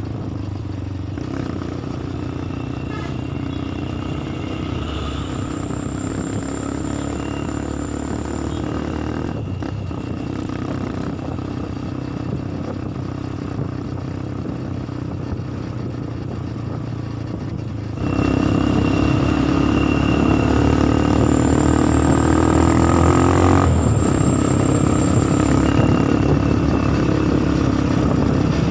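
Bus engine running under way, with road and wind noise through an open doorway. About two-thirds of the way in it grows much louder and its pitch climbs steadily as it accelerates, then drops abruptly a few seconds later.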